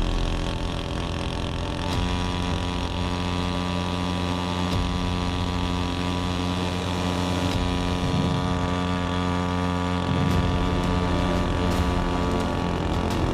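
Pro Quip 3 hp two-stroke outboard motor running at a steady speed on a small boat, settling into an even, unchanging note about two seconds in.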